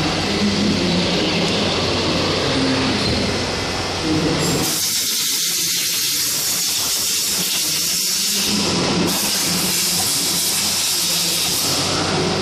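Steady machine noise of CNC parts machining, with a loud hiss that starts about five seconds in, breaks briefly, and stops near the end.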